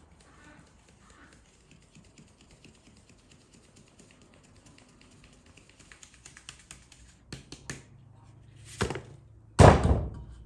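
Flour being sifted through a wooden-rimmed drum sieve into an enamel basin, with a hand tapping the sieve's side in a fast, faint patter that grows busier. Near the end come a few sharper taps and two louder knocks, the last one the loudest.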